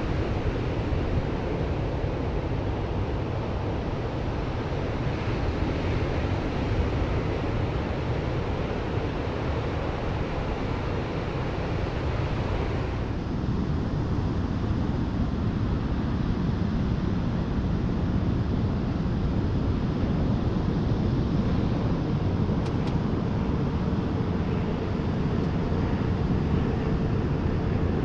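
Steady wind rushing over the microphone of a moving bike camera. About halfway through the rush becomes deeper and duller.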